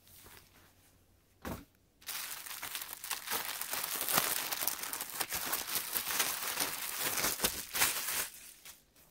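Thin clear plastic poly bag crinkling as hands handle a folded T-shirt inside it. There is a brief rustle about a second and a half in, then steady crinkling from about two seconds until near the end.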